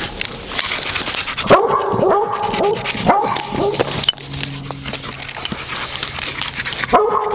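Dog yipping and whining in short excited bursts while hunting an animal down a pipe, amid rustling and scratching.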